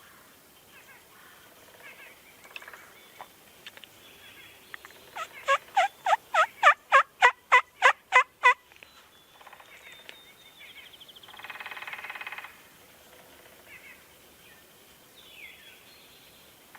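Wild turkey calling: a run of about a dozen loud yelps, some four a second, each note falling in pitch. About 11 seconds in comes a quieter rattling gobble.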